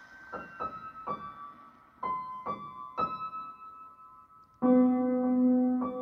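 Background piano music: a slow melody of single high notes. About two-thirds of the way through, lower held notes come in and the music gets much louder.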